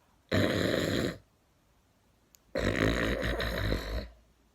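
A person snoring: a snore near the start and a longer one about halfway through, with a third beginning at the very end.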